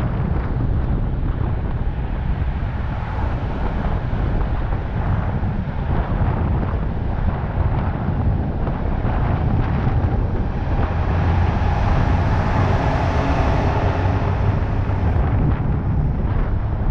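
Wind buffeting a roof-mounted camera's microphone over the steady low rumble of a vehicle driving at speed, with road and traffic noise; the hiss swells for a few seconds past the middle.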